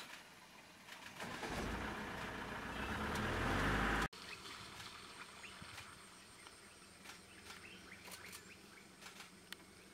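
A vehicle engine running close by, growing steadily louder for about three seconds and cut off abruptly about four seconds in. After that come faint bird chirps and a steady high insect whine.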